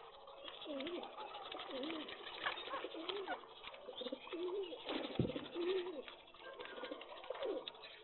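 A flock of pigeons cooing over and over, calls overlapping, with many small taps from birds pecking grain on concrete and one sharp knock about five seconds in.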